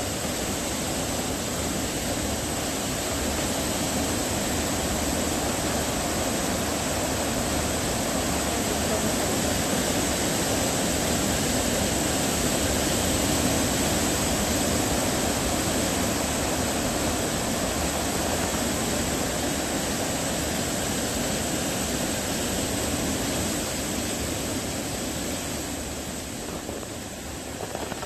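Steady rushing of Helmcken Falls, a tall waterfall, its water pouring down without let-up.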